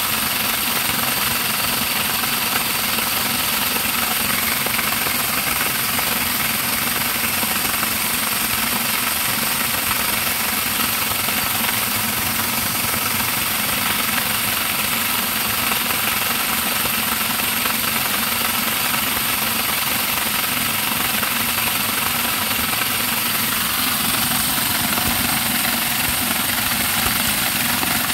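Homemade electric corn grinder running steadily, its motor driving the grinder as dried corn feeds down from a bucket hopper and is ground into grits. The mechanical running and grinding noise goes on without a break or change in level.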